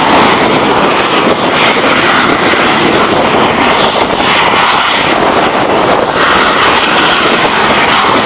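Loud, steady jet noise from the Canadian Forces Snowbirds' CT-114 Tutor jets, each powered by a single turbojet, during their takeoff.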